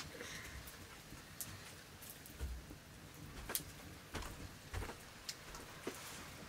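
Faint, irregular clicks and light taps of fingers against metal plates while eating rice by hand.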